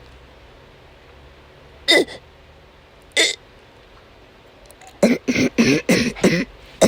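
A woman coughing during an asthma attack: two single coughs a little over a second apart, then a rapid fit of about six coughs in a row near the end.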